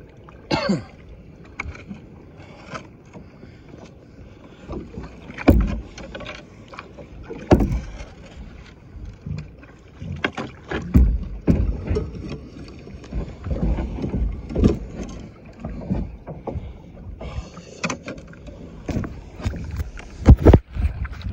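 Choppy water sloshing and slapping against a plastic kayak's hull, with irregular thumps and knocks, the loudest near the end.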